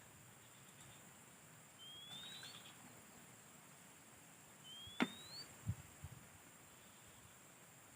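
Two short rising bird whistles, the second about three seconds after the first, then a sharp click and two soft thumps.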